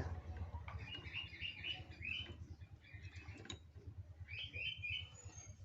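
Bird chirping in two quick runs of short high notes, over a low steady hum.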